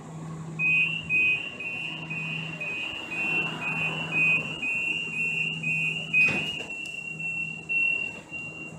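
Siemens S200 light-rail car's door-closing warning: a rapid beep alternating between two high pitches as the door closes, then a sharp knock as the door shuts about six seconds in, after which the tone holds steady. Under it runs the car's low steady hum.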